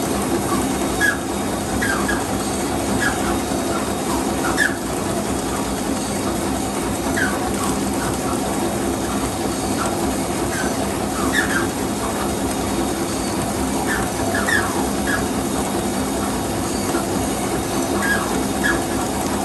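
Straw bending machine running at production speed: a steady mechanical hum and rattle, with short high squeaks coming at irregular intervals.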